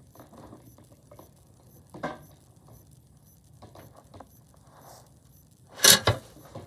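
Fidget toys being handled and put away: faint rustling and light knocks, a sharper knock about two seconds in, and a loud double clack near the end.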